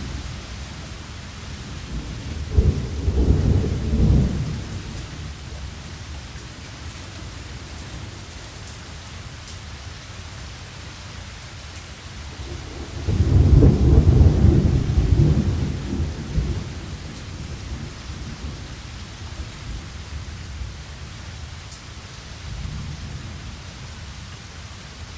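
Thunderstorm: steady rain with rolling thunder, a low rumble about three seconds in and a longer, louder roll around the middle, then a faint one near the end.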